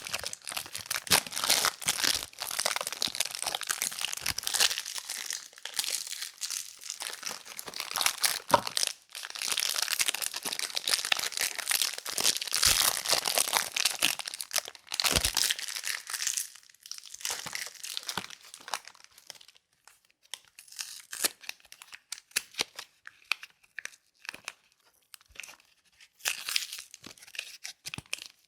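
Soap packaging being unwrapped by hand: wrappers torn open and crinkled in a dense run of crackling, which thins after about sixteen seconds to scattered, lighter crinkles and clicks.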